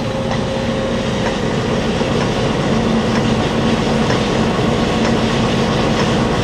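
Monarch 25"N heavy-duty engine lathe running with its carriage being traversed along the bed: a steady gear and drive clatter, joined by a low hum about two and a half seconds in.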